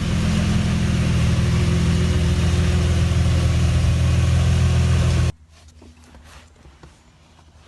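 Car engine idling steadily, cutting off abruptly about five seconds in.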